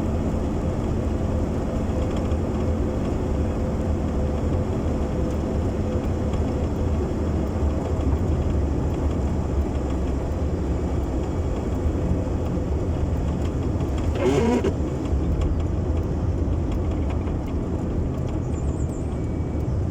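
Car running on the road, heard from inside the cabin: a steady low engine and road rumble, with one brief louder sound about fourteen seconds in.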